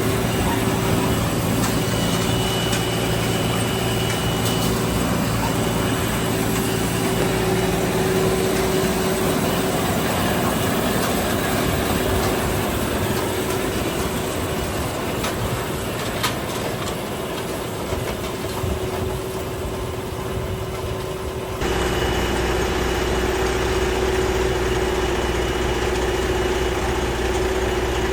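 Heavy sugar beet harvest machinery running steadily in the field, a dense mechanical din with a constant whine. About 21 seconds in, it cuts abruptly to a deeper, steady engine idle.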